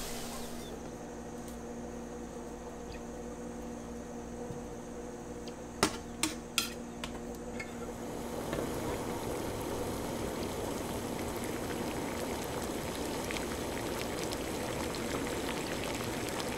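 White-wine braising liquid simmering around veal shanks in a stainless steel pan, a steady bubbling that grows busier from about halfway. Three sharp clicks come about six seconds in, over a faint steady hum.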